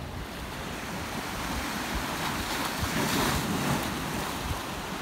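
Surf from a typhoon swell breaking and washing over rocks and a seaside walkway, with wind buffeting the microphone. The wash grows louder about two seconds in and peaks a little after three seconds.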